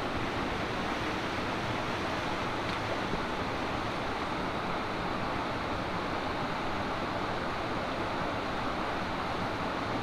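Steady rush of a shallow stream flowing over rocks, with a constant even hiss and no changes.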